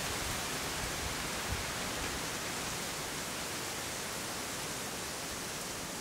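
Wind moving through the swamp's trees and broad-leaved plants, a steady even rustling hiss.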